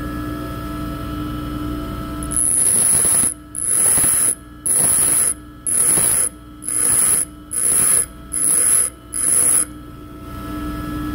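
Bench grinder running with a steady hum. From about two seconds in, a lathe cutting tool bit is pressed against the grinding wheel in eight short passes of about one a second, each a loud grinding hiss, as the side relief angle is ground.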